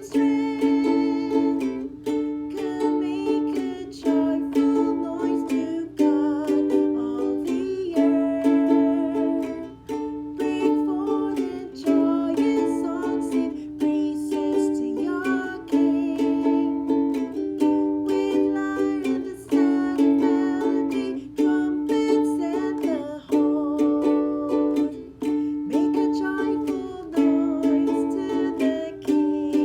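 Instrumental music: a strummed string instrument playing chords in a steady, repeating rhythm.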